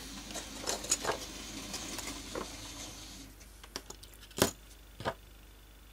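Small plastic model-locomotive parts being handled on a workbench: soft rustling for about three seconds, then scattered light clicks, with two sharper clicks in the last couple of seconds.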